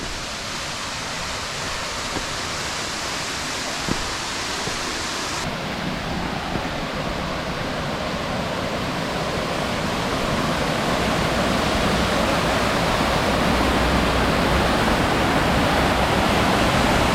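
High Shoals Falls waterfall rushing: a steady noise of falling water that grows gradually louder.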